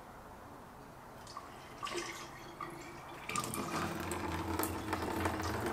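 Coolant being poured from a jug into a Yamaha Kodiak 400 ATV's radiator. The pouring starts out faint with a few small clicks and becomes a steady, louder run of liquid about three seconds in.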